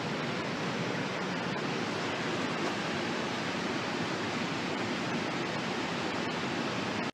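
Steady, even background hiss with a few faint clicks; no gunshot.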